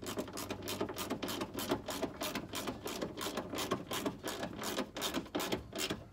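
Hand ratchet clicking in quick, uneven strokes as fender-flare screws are run into plastic screw holes.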